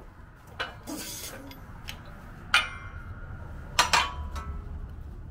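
Steel press sleeve and puck being lifted off a wheel hub and set down: a few sharp metal clinks that ring briefly. The loudest comes about two and a half seconds in, followed by a double clink near four seconds.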